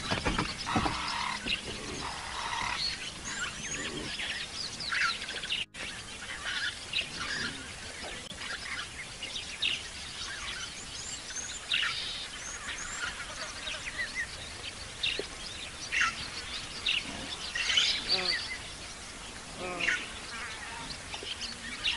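Wild birds chirping and calling, many short, quick chirps and whistles overlapping in a steady chorus. The sound cuts out for an instant about six seconds in.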